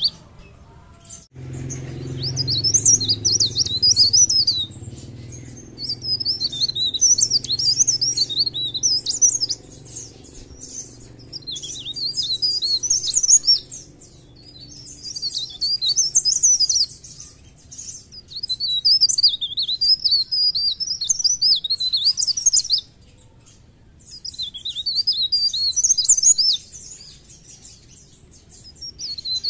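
A caged blerengan (cikrak daun) singing vigorously: rapid, high twittering phrases of two to three seconds each, about seven of them, separated by short pauses.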